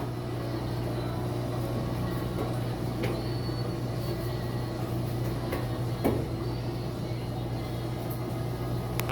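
Steady low machine hum, with a few light clicks and knocks spaced a few seconds apart.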